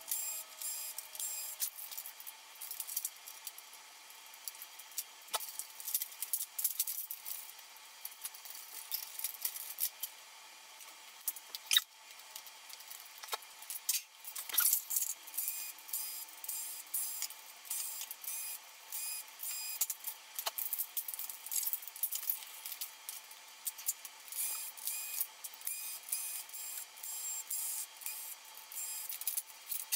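Quick, rapid clicks and rattles of an electronics teardown: small plastic and metal parts being handled and screws being driven out with a cordless electric screwdriver, with the sharpest click about twelve seconds in. The sound is thin, with no low end, as the sped-up audio of a timelapse tends to be.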